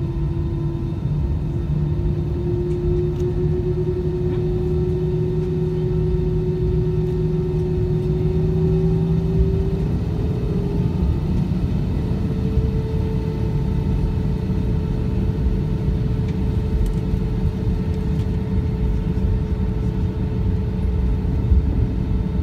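Cabin noise of an Airbus A320-214 taxiing: a steady low rumble with the hum of its CFM56 engines, which rises slightly in pitch about ten seconds in.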